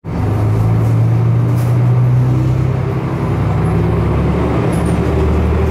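Diesel railcar of the Kantō Railway Jōsō Line idling, a steady low engine hum.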